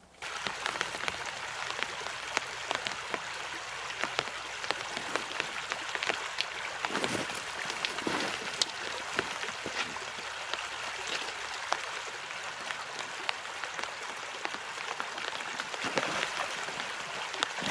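Rain falling steadily, with many individual drops ticking close by, over the rush of a shallow rocky river.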